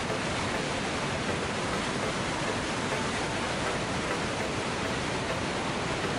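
Mountain waterfall cascading over rocks: a steady, even rush of white water.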